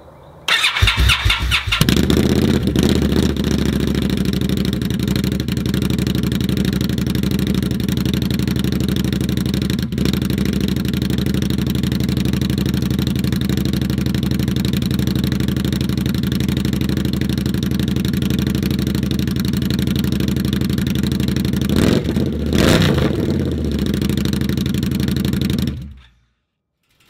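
2015 Indian Scout's V-twin engine, fitted with a Samson Cannon slip-on exhaust with the baffles out, cold-started: it cranks and catches about half a second in, then settles into a steady idle. Near the end it is revved briefly, then shut off abruptly.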